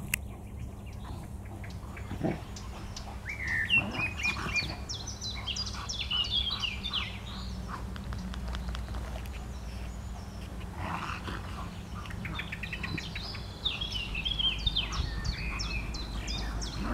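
Songbirds singing in runs of quick, high chirping notes, about three seconds in and again from about ten seconds, over a steady low outdoor rumble. Two large dogs play-fighting add a few short sounds.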